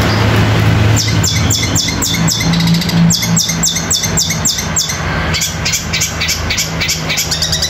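Long-tailed shrike (cendet) singing a rapid train of sharp, downward-slurred chirps, several a second with short breaks, starting about a second in. It is a mimicked sparrow-like fighting chatter from the bird's repertoire of copied natural calls.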